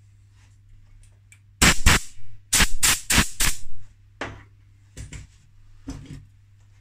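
Compressed-air blow gun on a coiled air hose firing about ten short, sharp hissing blasts in quick clusters, starting about a second and a half in.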